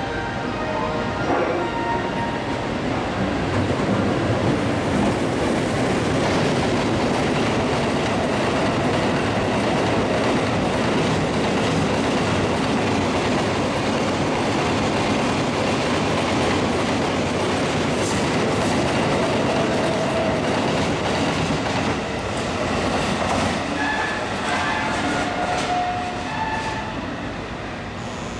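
A long freight train of loaded limestone hopper wagons running through at speed: a continuous rumble of wheels with clickety-clack over the rail joints, easing off a little near the end.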